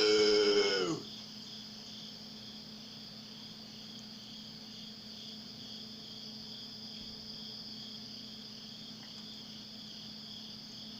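A Klaxon CS8 siren sounds one short blast of about a second at the start, its pitch sagging as it cuts off. Insects chirp steadily in the background throughout.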